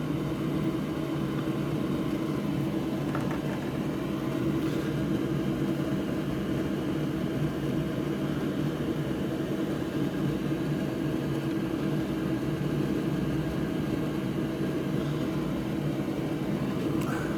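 Steady mechanical whir with a low hum, like a fan or blower running at the workbench, unchanging throughout.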